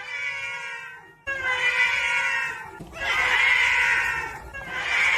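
A black-and-white domestic cat's long meows, about four in a row, laid over one another in more and more copies so that they build into a dense chorus of meowing. The chorus gets louder about halfway through.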